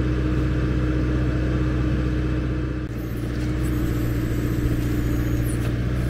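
Branson compact tractor's diesel engine running steadily at a constant speed, with a brief dip in level about three seconds in.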